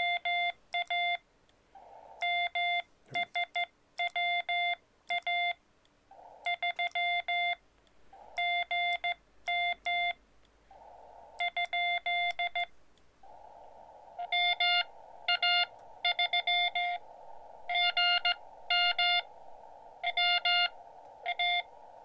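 Morse code (CW) beeps from a Xiegu X-6100 transceiver: single-pitch dots and dashes keyed in quick groups, with a narrow band of receiver hiss filling the gaps between transmissions. Over the second half the beeps come louder, on top of the hiss.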